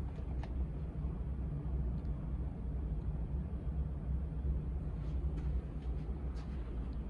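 Steady low rumble of a jet airliner taking off, with a few faint ticks above it.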